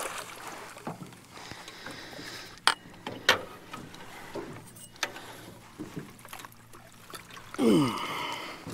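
Two sharp knocks of fishing gear against the jon boat, over faint wind and water. Near the end comes a short, loud grunt that falls in pitch as a landing net holding a blue catfish is hoisted aboard.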